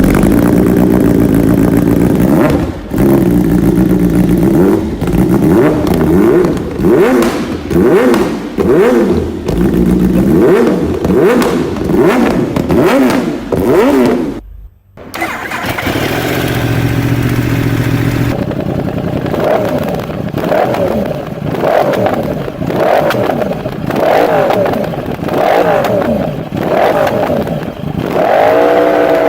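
Superbike inline-four engine revved over and over in short throttle blips, its exhaust note rising and falling. After a cut about halfway through, an engine idles steadily for a couple of seconds, then is blipped again in quick bursts.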